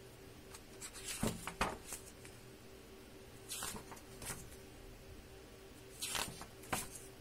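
Pages of a large hardbound picture book being turned by hand: a series of short paper swishes and rustles, the loudest a little over a second in, over a faint steady hum.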